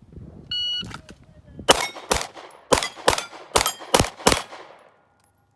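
Shot timer's start beep, then about seven quick 9mm shots fired in rapid succession, each with a short ringing tail.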